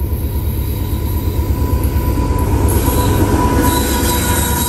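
A CSX diesel freight locomotive approaching and passing close by: a deep engine rumble that grows louder, with a steady high tone running over it. It is loudest a little past halfway through, as the locomotive reaches the microphone.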